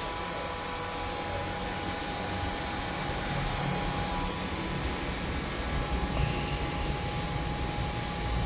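Handheld hot-air blower of the hair-dryer kind running steadily: a rush of air with a thin, steady whine.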